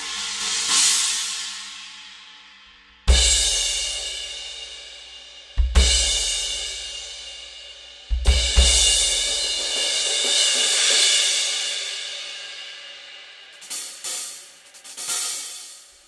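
B20 bronze cymbals struck one at a time, each together with a bass drum kick and left to ring and fade. The stroke about eight seconds in is the 18-inch HQ Cymbals two Raw Bell crash, which rings for about five seconds. A few lighter hits come near the end.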